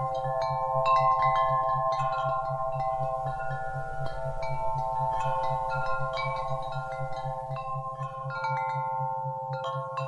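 Wind chimes ringing continuously: many overlapping, long-ringing tones struck at irregular moments. Beneath them runs a low, evenly pulsing isochronic tone.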